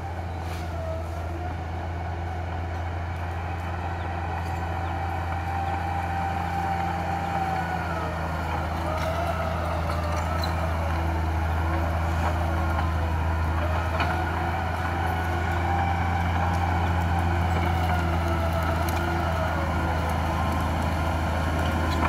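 Small crawler bulldozer's diesel engine running steadily under load, with a wavering whine above the low engine hum, growing gradually louder as the dozer comes closer. A few faint clicks.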